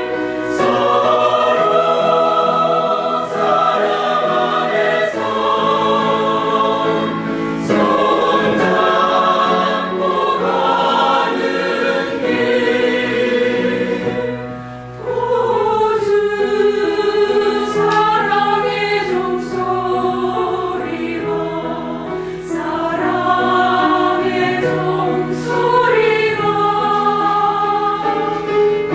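Church choir singing a gospel song in parts, holding long notes, with a brief break between phrases about halfway through.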